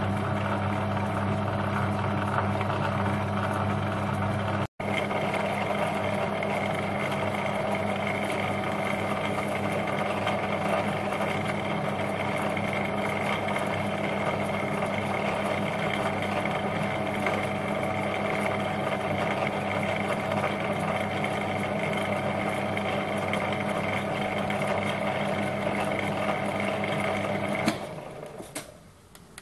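Small metal lathe running at its slowest spindle speed under power feed while a scissor knurling tool rolls a knurl onto a thin rod: a steady mechanical hum with a fixed whine. The sound drops out for a moment about five seconds in and stops near the end.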